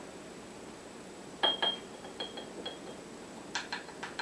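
Plastic measuring spoon tapping against the rim of a small glass jar as ground spice is knocked off into it. Two light clinks about a second and a half in leave a short clear ring in the glass, then several fainter clinks follow.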